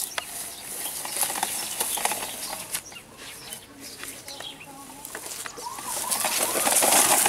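Young children's voices, wordless calls and babbling, over outdoor background noise with scattered short clicks. The sound grows loudest near the end.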